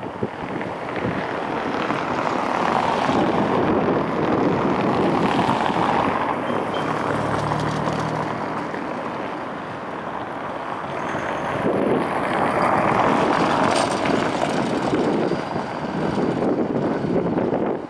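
Outdoor street noise: passing traffic swelling and fading, with wind buffeting the microphone.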